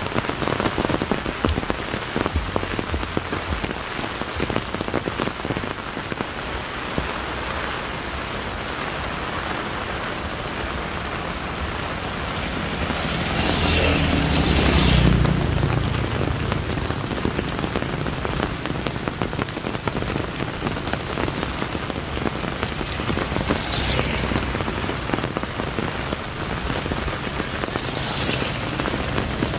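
Steady rain falling on surfaces. About halfway through, a louder swell of rushing noise with a low rumble lasts a couple of seconds.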